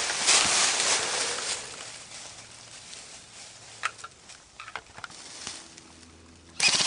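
Rustling and brushing noise from movement through brush, fading after a second or so, then a few faint clicks. Near the end an airsoft gun suddenly opens up in rapid full-auto fire.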